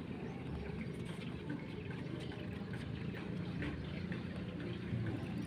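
Water lapping against a floating wooden platform, with faint scattered clicks.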